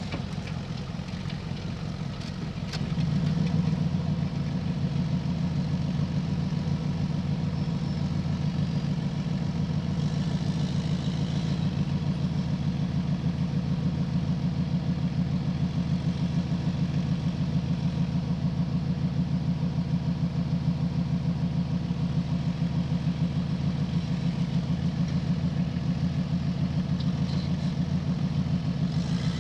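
Rock-crawling buggy's engine running steadily at low revs, stepping up to a louder, evenly pulsing note about three seconds in.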